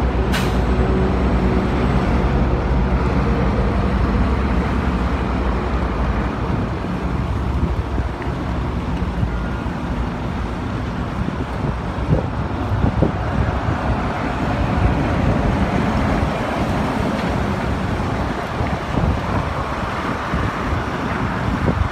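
Large Hyundai coach's diesel engine running steadily at idle, a low continuous rumble. Wind buffets the microphone, more in the second half.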